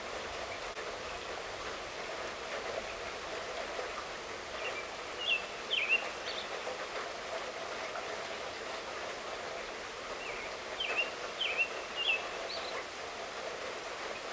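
Steady light rainfall, with a bird calling in two short runs of high chirps, about five seconds in and again about ten seconds in.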